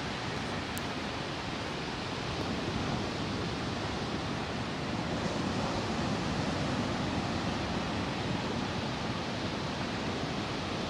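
Steady wash of ocean surf breaking on a beach, swelling a little midway.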